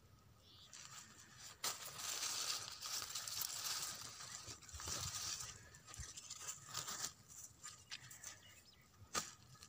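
Tomato plant leaves and stems rustling and brushing close to a phone's microphone, with scattered handling clicks. The rustling is loudest from about two to five seconds in.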